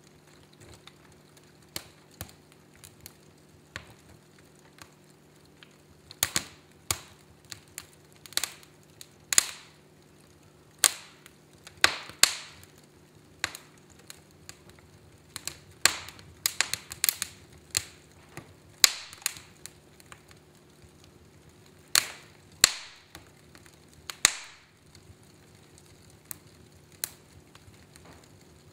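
Fire in a fireplace crackling, with irregular sharp pops, several of them loud and in quick clusters, over a faint steady low hum.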